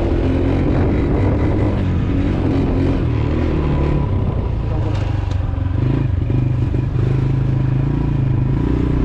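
Honda TRX90 ATV's small single-cylinder four-stroke engine running under way, its pitch rising and falling as the throttle is worked; the engine is still cold and on choke. Two brief clicks about five seconds in.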